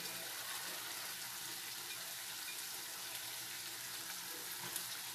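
Steady sizzling hiss of food cooking in pans on the stove, the chayote cooking off the last of its water.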